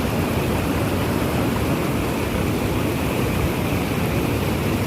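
Waterfall rushing steadily, running high in the rainy season.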